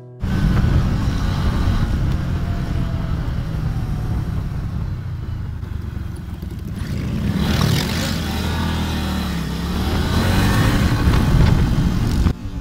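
Motorcycle engines running at road speed as a group of bikes rides along a highway, with a steady engine rumble under heavy wind noise. The engine note rises and falls slightly through the middle, and the sound cuts off abruptly near the end.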